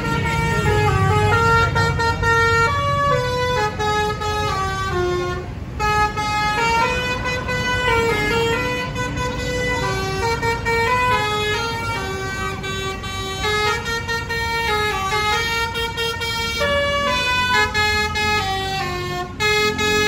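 Basuri musical bus horn playing a melody, one note after another in quick steps, over a steady low rumble.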